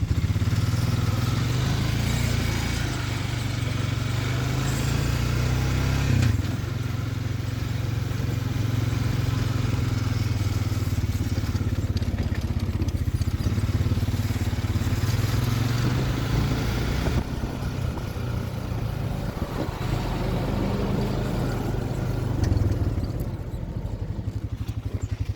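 Farm tractor engine running steadily while the tractor is driven along, with a low drone and a noisy mechanical rattle over it. The engine eases a little about two-thirds of the way through.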